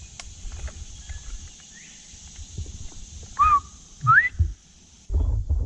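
Northern bobwhite giving its two-note "bob-white" whistle once, a short low note followed by a sharply rising whistle, about three and a half seconds in. A low rumbling noise starts near the end.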